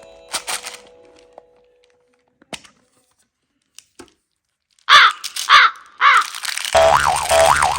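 A series of harsh animal-like calls, each arching up and down in pitch: three short ones about half a second apart, then a longer, lower one with a low hum under it near the end.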